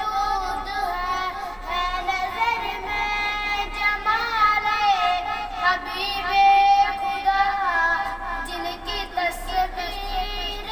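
A boy singing a naat solo, without instruments: long held phrases whose pitch wavers and bends in ornamented turns.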